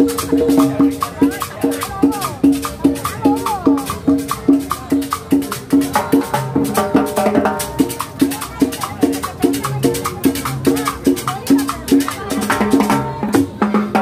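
Cumbia played by a small street combo, with accordion over a steady, even percussion beat with a shaker.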